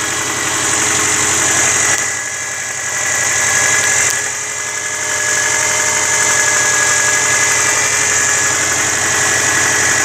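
Early-2000s Subaru Forester's flat-four boxer engine idling, not yet warmed up, with a light, rapid ticking over the running. The owner takes the tick for classic piston slap, heard here on Mobil 1 synthetic 5W-30 oil.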